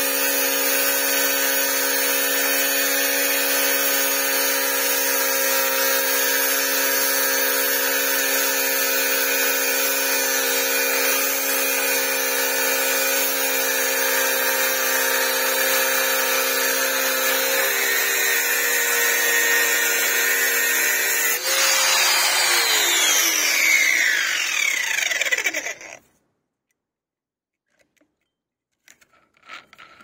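Angle grinder fitted with a quick release nut running steadily at full speed. About 21 seconds in it is switched off and the disc winds down over about four seconds, with the pitch falling, until it stops. Near the end there are a few faint clicks as the disc and nut are handled.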